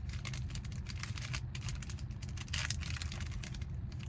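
Trading cards being handled and slid one over another by hand: a quick run of crisp rustles and clicks over a steady low hum.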